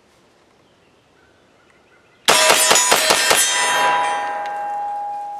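Henry Homesteader 9mm blowback semi-auto carbine fired rapidly, a quick string of about seven shots in just over a second, starting about two seconds in. The hit steel targets ring on with several clear tones that slowly fade.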